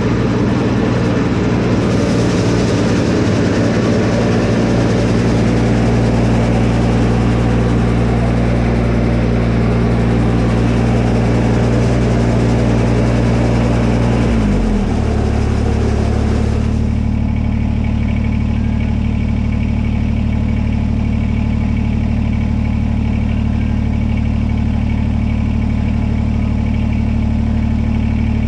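Kubota BX tractor's three-cylinder diesel running at raised revs, driving the front rotary broom so its bristles whir. About halfway through the engine drops to a lower speed, and a couple of seconds later the broom's whirring stops, leaving the diesel idling steadily.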